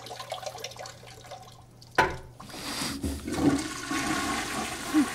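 A toilet being flushed: a sharp clack of the flush handle about two seconds in, then a rush of water emptying and refilling the bowl.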